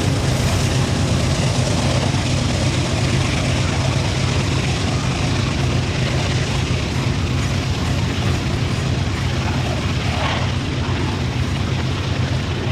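Canadian Pacific freight train of potash hopper cars rolling steadily past, with the rumble and clatter of steel wheels on the rails over the low hum of the diesel locomotives pulling it away.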